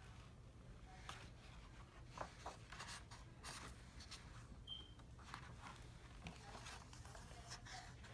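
Faint paper rustling and light ticks of a hardcover picture book's pages being turned by hand, in several short scattered bursts over a low steady hum.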